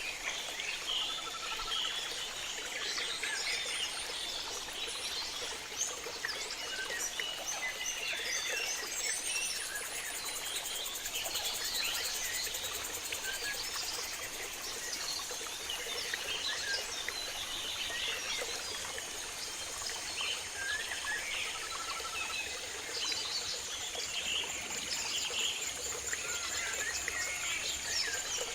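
Tropical rainforest chorus: many birds calling and chirping over a steady high-pitched insect drone, with flowing river water underneath.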